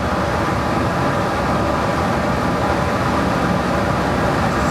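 Metal lathe running steadily, a constant mechanical hum with faint steady whine tones.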